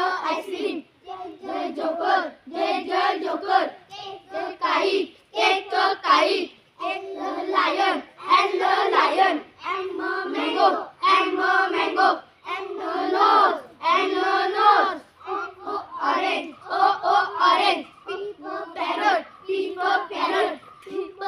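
Children's voices chanting phonic sounds in short, rhythmic phrases with brief breaks between them, sung or chanted together.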